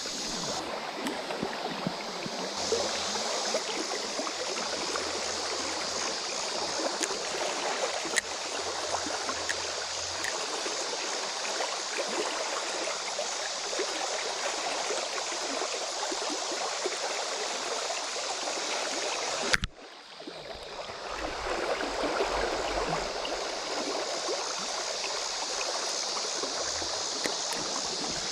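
Creek water rushing steadily over rocks in a shallow current. Near the two-thirds mark it cuts out briefly after a sharp click, then comes back.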